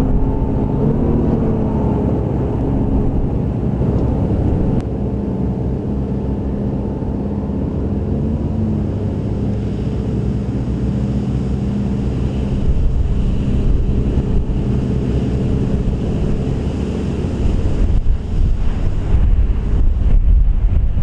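John Deere tractor engine running steadily under load while it pulls a McHale 550 round baler working grass, with the baler's mechanism under the engine note. Wind buffets the microphone in the last few seconds.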